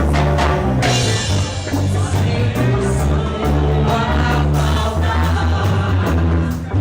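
A Christian praise band playing, with a steady bass line, regular drum hits and a singing voice.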